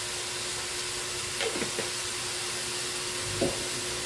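Chicken pieces sizzling in an aluminium wok over a gas burner: a steady hiss, with a few short faint knocks about a second and a half in and again near three and a half seconds.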